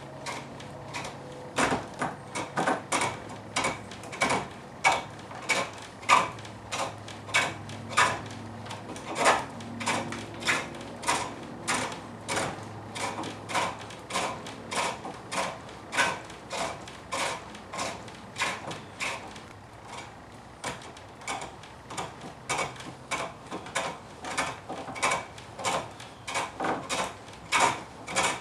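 Turning gouge cutting a wooden spindle on a cord-driven pole lathe: a rhythmic scraping cut on each stroke, about two a second.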